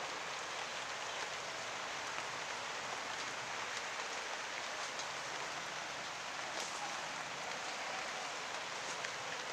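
Rain falling steadily: an even hiss with a few scattered drop ticks.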